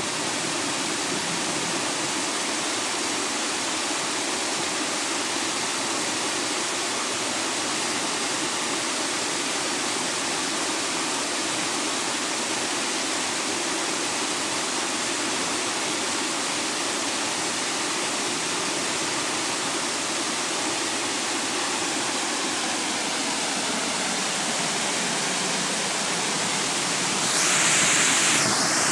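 Small creek waterfall spilling over a rock ledge: a steady rush of splashing water that gets louder and brighter near the end.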